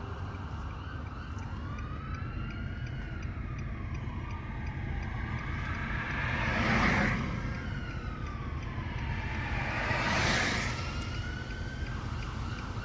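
An unexplained wavering tone from the sky, slowly rising and falling in pitch like a distant siren, over a steady low rumble. Twice a rushing noise swells and fades, about seven and ten seconds in.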